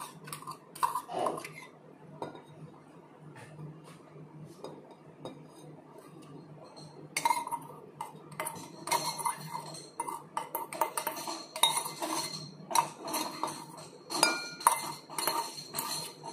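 A metal spoon scraping and clinking inside a stainless-steel lota as the muddled mint and lemon are scooped out into a glass. Only a few soft clicks at first, then from about halfway a busy run of sharp clinks and scrapes with a brief metallic ring.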